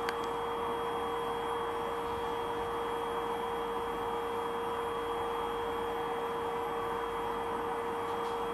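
Steady electrical hum with a fixed higher whine above it, unchanging throughout.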